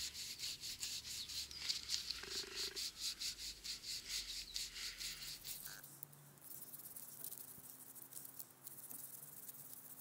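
Pocket-knife blade slicing through a tightly rolled paper roll in quick repeated scratchy strokes, about three a second. The strokes become fainter about six seconds in.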